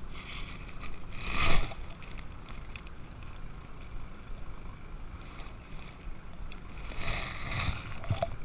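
Water splashing and sloshing as someone wades through a flooded boat cabin, loudest about a second and a half in and again near the end, over the steady low drone of a trash pump running.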